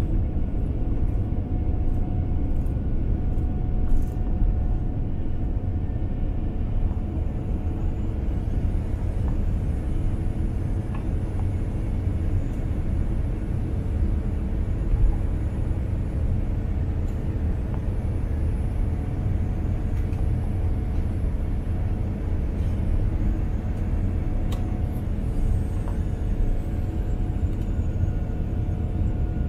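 Airliner turbofan engines running at takeoff power: a steady, loud low rumble with a steady whine laid over it.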